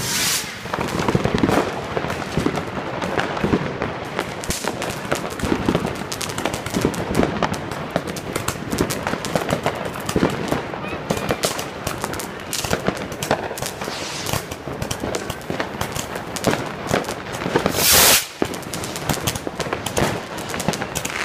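Fireworks going off: a dense, unbroken crackle of small bangs and pops, with one louder burst near the end.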